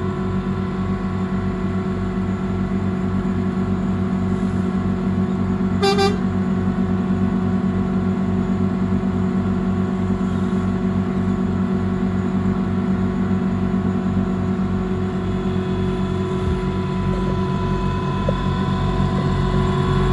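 The engines of a Rhaetian Railway rotary snowplow and its pushing Gmf 4/4 diesel locomotive run steadily with an even low pulse as the rotor clears deep snow, growing a little louder near the end. A short horn toot sounds about six seconds in.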